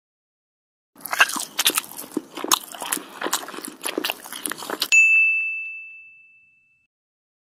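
Cartoon sound effects: about four seconds of crisp crunching and munching clicks, then a single high ding about five seconds in that rings out and fades.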